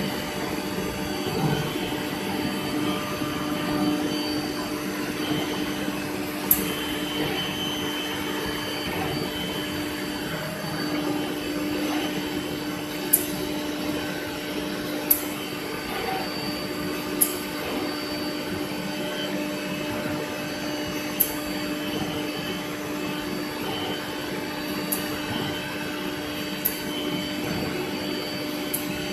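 CNC router spindle running steadily as the machine cuts a sheet panel: a steady whine over a rushing machine noise, with sharp clicks every few seconds.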